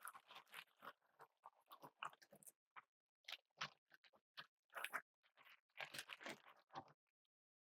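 Ziploc plastic bag crinkling faintly in irregular crackles as chicken cutlets are shaken in seasoned flour inside it.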